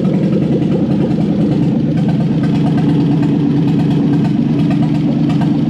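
Toyota 1UZ-FE four-litre V8 on an engine stand, idling steadily just after start-up. The engine has a burnt valve on number 7.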